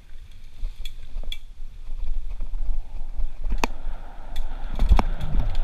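Mountain bike rolling down a dirt singletrack, heard through a handlebar-mounted camera: a low rumble of wind and trail on the microphone, with sharp clatters as the bike hits bumps, the two loudest about three and a half and five seconds in. A rushing noise joins from about the middle.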